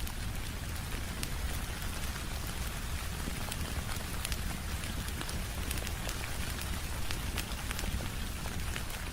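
Steady rain, an even hiss over a low rumble, with many small sharp ticks scattered throughout.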